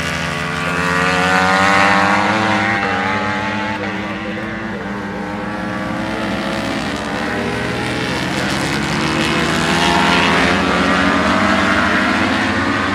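Superbike racing engines as several bikes pass one after another through a corner, engine pitch sliding up and down as they brake and accelerate. The sound is loudest about two seconds in and again around ten seconds in.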